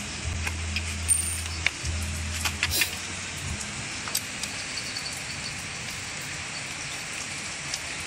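A few light clicks and rattles of a plastic washing-machine drain-selector housing being handled, mostly in the first three seconds, over steady background hiss. A low hum stops about three and a half seconds in.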